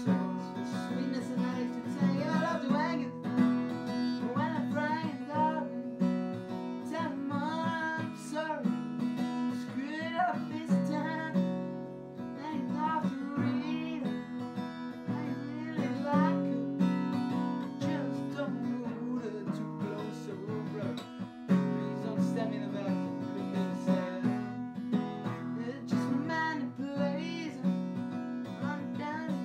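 Acoustic guitar strummed in a steady repeating pattern, with a man singing along.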